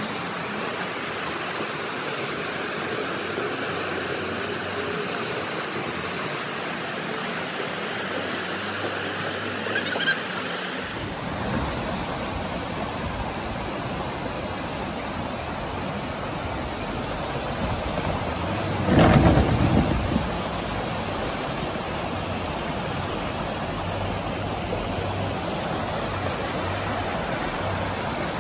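Rushing river water with an off-road 4x4's engine running as it crawls through a rocky riverbed, first a Nissan Patrol, then a Suzuki Jimny. About two-thirds of the way in there is a brief, louder surge of noise.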